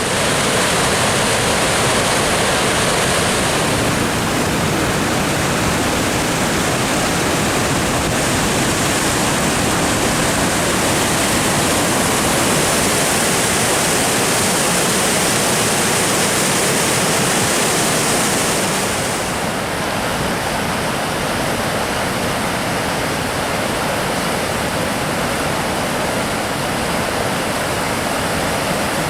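Waterfall rushing steadily as a loud, even roar of water; the hiss dulls slightly about two-thirds of the way through.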